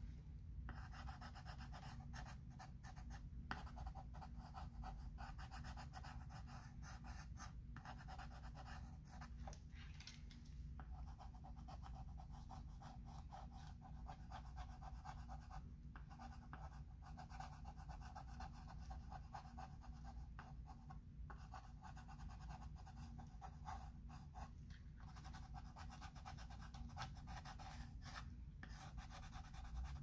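Chalk pencil scratching across a chalkboard in long, faint tracing strokes, broken by short pauses every few seconds.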